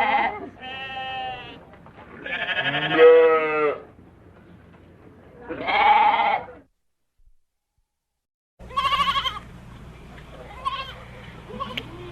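Goats bleating: a series of wavering bleats, each about a second long. About seven seconds in the sound drops out completely for two seconds, then more, quieter bleats follow.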